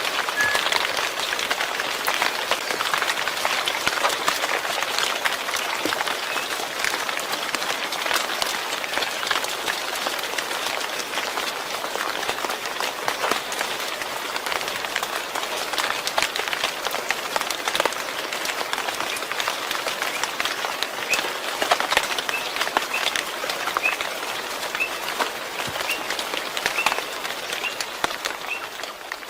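Steady heavy rain: a dense, even patter of many drops.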